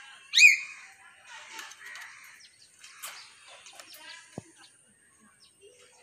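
Hill myna giving one loud, short whistle that rises and falls, about half a second in, followed by softer chattering and clicking notes and a single sharp click later on.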